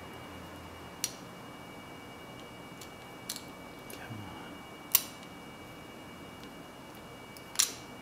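Small sharp metal clicks of a hook pick and tension wrench working inside an Abus Discus padlock, four separate clicks at irregular intervals, the last two loudest.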